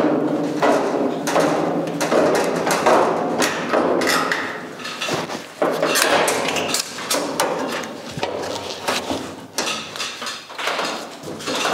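Sheet-steel body panel pieces clanking, scraping and knocking irregularly as a channel section is worked into place on a car body.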